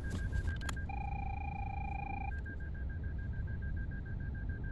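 Toyota Raize's in-cabin reversing beeper, beeping rapidly at about six beeps a second: the car is in reverse gear. About a second in the rapid beeping gives way for a second and a half to a longer, steady warning tone, then resumes.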